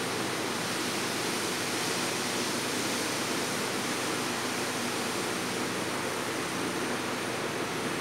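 Steady, even rushing noise with a faint low hum under it, with no distinct events standing out.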